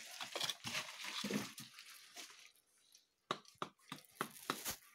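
A person moving over rock in a mine passage: rustling and scuffing of clothing and gear for the first couple of seconds, then, after a short pause, five or six sharp clicks and knocks against stone.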